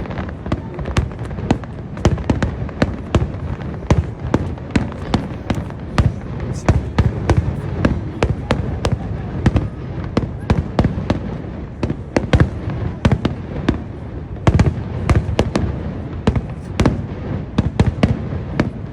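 Aerial fireworks going off in rapid succession: many sharp bangs and cracks, several a second, over a continuous low rumble.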